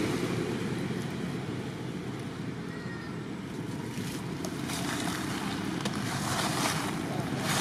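Steady outdoor background noise with no clear source, and a few faint crackles in the second half.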